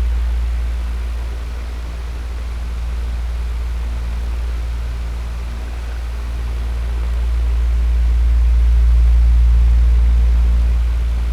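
Electric fan running: a steady rush of air over a deep low hum, the level slowly easing down and swelling back up, loudest about nine seconds in.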